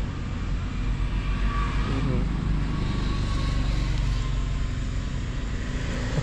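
A motor vehicle engine running steadily, with no clear revving.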